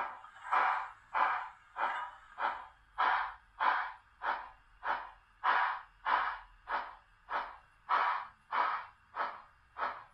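Sound-equipped model steam locomotive chuffing as it moves slowly, with an even, hissing chuff a little under twice a second.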